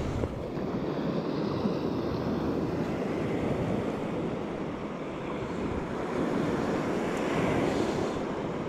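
Steady wash of surf breaking on the beach, with wind noise on the microphone.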